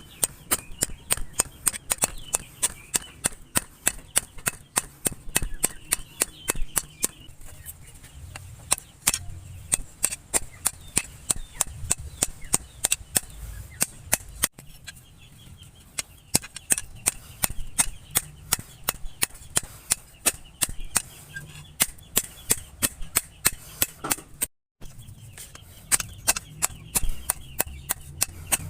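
Hand hammer striking the steel of an old bearing on an anvil, forging it out: sharp ringing blows in a quick, even rhythm of several strikes a second, broken off briefly near the end.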